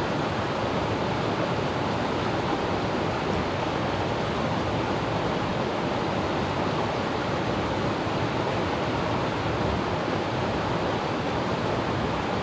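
Small river rushing over rocks: a steady, even rush of running water.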